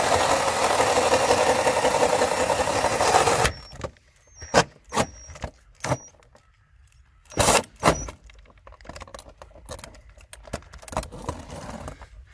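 Cordless drill spinning a hole saw as it cuts through vinyl siding, a loud steady grinding that cuts off suddenly about three and a half seconds in. A few sharp knocks and small clicks follow.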